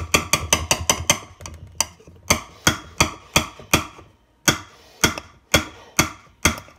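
Metal hand-mixer beaters being rapped against a pan to knock off clinging cream cheese mixture: about twenty sharp knocks, quick at first and then about two a second.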